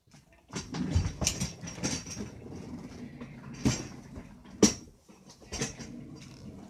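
A chair being shifted and handled in a small room: irregular bumps and scraping with several sharper knocks, the loudest a little past the middle.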